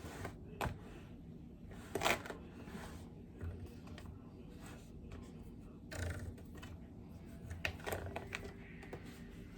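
A utensil scraping and tapping against a baking pan as cake batter is spread over it, in a handful of short, irregular strokes.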